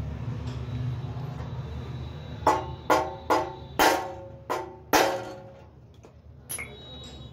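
Six sharp knocks, each with a short metallic ring, struck on the back of a 14-inch cut-off machine's motor to free an armature that won't turn freely because its bearing is jammed.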